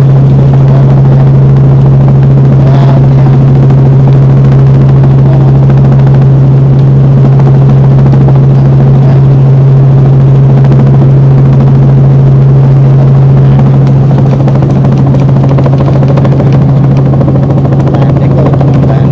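Robinson R44 helicopter in flight, heard from inside the cabin: its rotor and six-cylinder piston engine make a loud, steady drone with a strong low hum. The level wavers slightly over the last few seconds.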